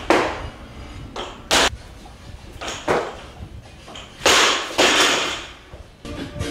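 A man's sharp, hissing breaths and exhales as he lifts a barbell, several of them a second or so apart, with two longer ones a little past the middle.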